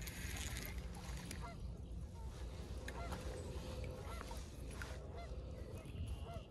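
Geese honking at a distance: a string of short, repeated honks, over a low rumble.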